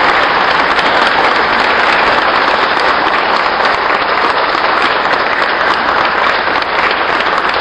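A congregation applauding, steady and loud, greeting the bride and groom's kiss.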